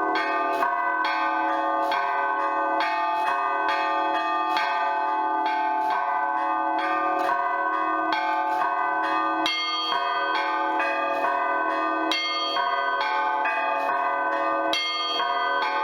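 Russian Orthodox church bells rung in a zvon on a set of old cast bells: the small treble bells are struck in quick rhythmic patterns over the middle bells, several strokes a second, their tones overlapping and ringing on. Brighter high bells come to the fore about two-thirds of the way through.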